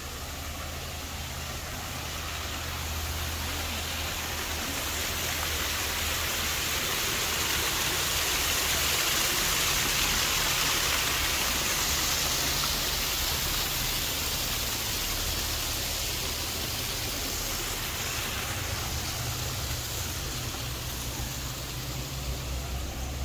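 Small waterfall splashing into a stream pool, a steady rush of water that swells to its loudest midway and then eases off.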